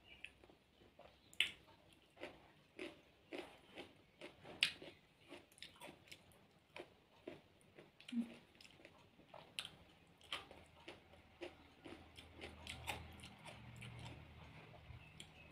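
A person eating by hand, close up: chewing and biting food, with irregular crisp crunches and mouth clicks.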